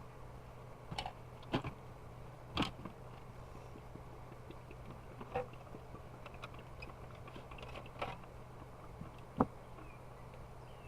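Scattered light clicks and knocks of plastic humidifier parts being handled and fitted together, about six over ten seconds.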